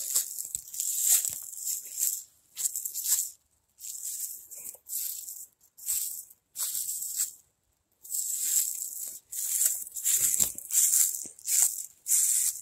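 Footsteps crunching through dry fallen leaves at a steady walking pace, about one step every half second to second, with a short pause about eight seconds in.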